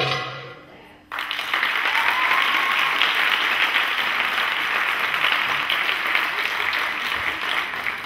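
The music ends on a final beat that rings out, then about a second in an audience breaks into loud, steady applause that carries on to the end.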